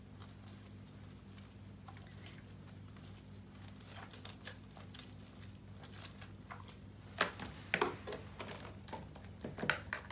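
Green glue-based sequin slime being stretched, folded and squeezed by hand, giving soft squishing and sticky clicks, with a few louder snapping pops of trapped air from about seven seconds in. The slime is still droopy and gloopy, short of activator.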